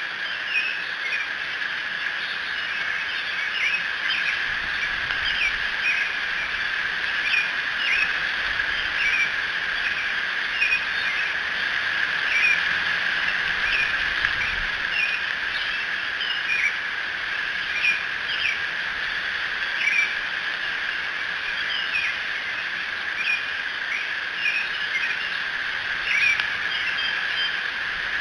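Early-morning chorus of small birds, many short chirps and calls overlapping, over a steady high insect trill.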